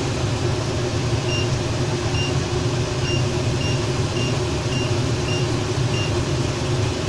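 Siemens hob touch controls giving a string of short high beeps, one with each press as the cooking timer is set, starting about a second in and coming roughly every half second. Under them a steady low hum.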